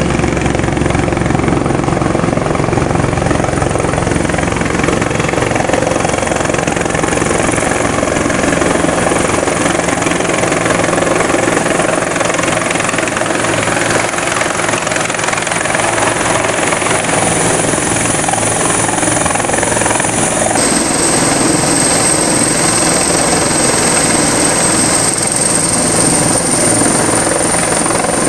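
Turbine helicopter approaching and settling onto an offshore rig's helideck, rotor and engine running loud and steady, with a high turbine whine throughout. The whine dips slightly about two-thirds of the way in and slowly climbs back.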